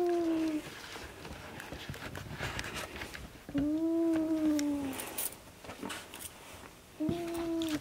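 Kitten meowing three times, each call about a second long at a steady, slightly arching pitch, a few seconds apart.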